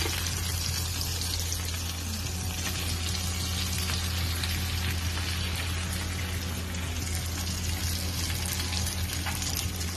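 Breaded trout fillets frying in a pan of butter and olive oil: a steady sizzle, over a constant low hum.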